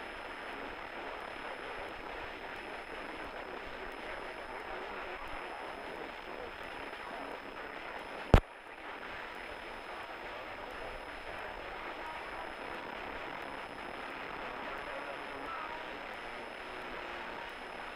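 Steady engine and propeller noise of a single-engine light aircraft, heard inside the cabin during the climb-out after takeoff. A single sharp click about eight seconds in is the loudest sound.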